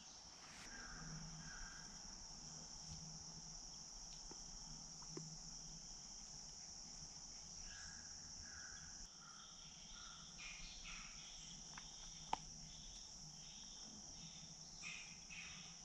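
Faint, steady high-pitched chorus of insects, with a few short chirps scattered through the middle and one small click near the end.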